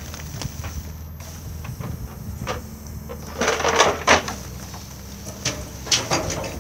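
Truck-mounted hydraulic loader crane running with a steady engine and hydraulic drone while its grapple lowers a plastic-wrapped round bale into a steel container. The bale's wrap scrapes and bumps against the container walls in two loud rustling patches, a few seconds in and again near the end.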